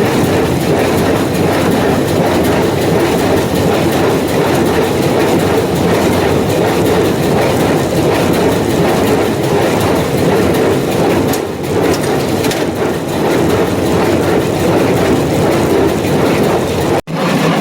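John Deere 328 square baler running at operating speed, its mechanism clattering in a fast, steady rhythm.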